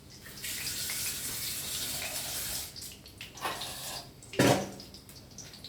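Kitchen tap running for about two seconds, washing fresh coriander, then shut off. Two knocks follow, the second, near the end, the loudest.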